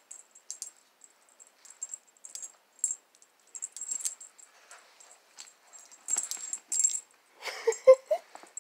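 A cat playing with a toy on a fabric tote bag: repeated bursts of light jingly rattling and rustling. Near the end there is a brief, loud voice-like cry.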